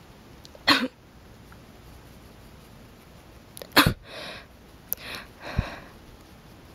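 A person sneezing: one sharp sneeze just under a second in, a second sharp sneeze a few seconds later, followed by a few shorter, breathy sounds.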